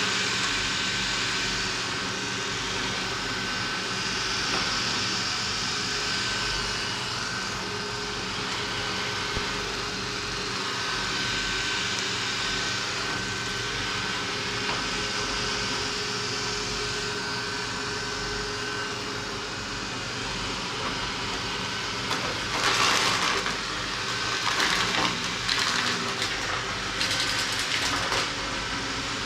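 Roborock S4 Max robot vacuum running as it cleans: a steady suction-fan whir with a constant high whine, and a few louder, rougher noises near the end.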